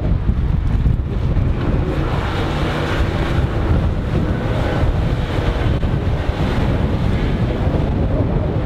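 Wind buffeting the microphone. Under it, the drone of a Bayliner 245 sports cruiser's MerCruiser 5.0-litre V8 sterndrive running at planing speed, with the hiss of its hull spray, clearest in the middle.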